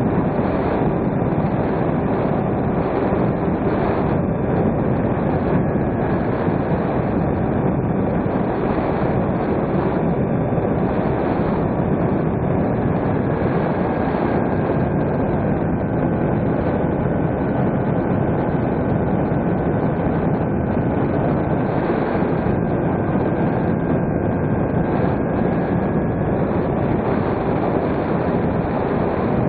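Steady rush of airflow over an RC plane's onboard camera, with the drone of its battery-powered electric motor and propeller in cruise. A faint thin tone comes in about twelve seconds in and fades out near the end.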